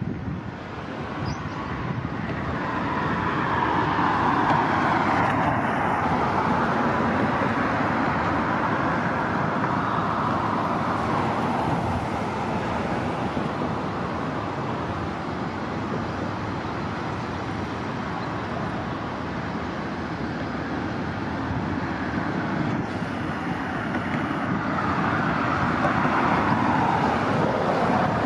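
Transit buses driving past with engine and tyre noise over steady traffic rumble, one swelling loudest a few seconds in and another building near the end.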